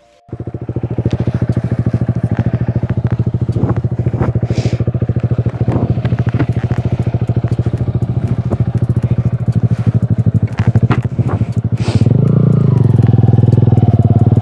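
Honda motorcycle engine running at low revs with a steady pulse, then revved louder about twelve seconds in, the pitch rising and falling.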